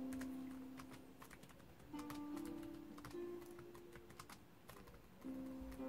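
Laptop keyboard typing: quick, irregular keystrokes. Soft music with held notes comes in about two seconds in and again near the end.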